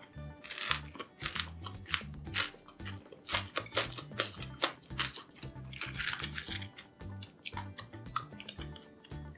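Close-up crunching and chewing of crispy fried tempura: a quick run of sharp crackles, with background music underneath.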